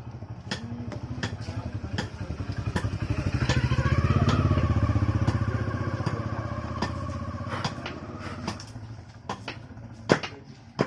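A motor vehicle engine passing by, rising to a peak and then fading away over several seconds, with scattered sharp clicks and light knocks.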